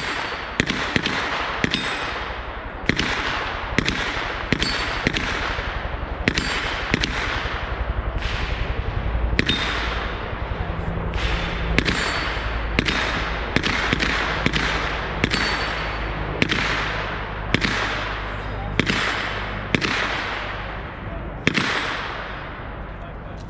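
Gunshots on a shooting range: about two dozen single shots from several guns, spaced irregularly around a second apart, each followed by a long echoing tail.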